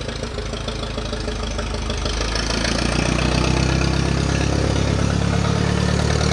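Propane-powered forklift engine running as the forklift drives forward, getting louder from about two seconds in as it pulls away.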